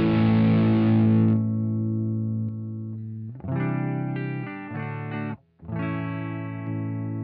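Electric guitar chords through an overdrive pedal into a Deluxe Reverb amp simulator; about a second and a half in the overdrive is switched off and the distortion stops at once. Clean chords are then struck three times and ring out, with a brief cut-off between the last two.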